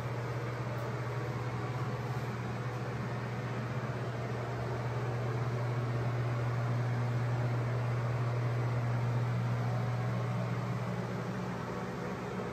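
Steady low mechanical hum with an even hiss behind it, unchanging throughout, of the kind a running fan makes.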